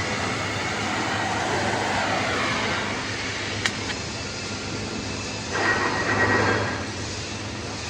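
Pipe welding under way: a steady arc hiss over a low electrical hum, with a sharp click about three and a half seconds in and a louder swell of hiss lasting about a second, some five and a half seconds in.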